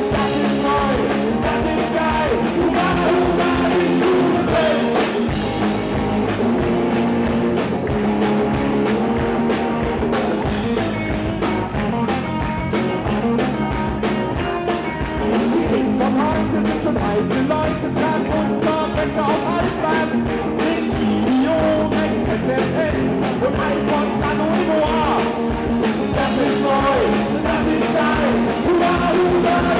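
A band playing rock music live: electric guitar, electric bass and drum kit, with a steady beat.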